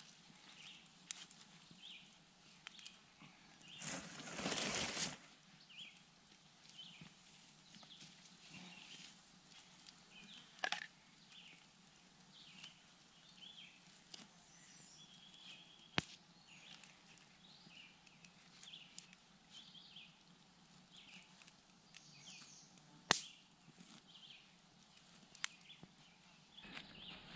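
Quiet woodland ambience with small birds chirping faintly throughout. A brief rustle comes about four seconds in, and there are a couple of sharp clicks later on.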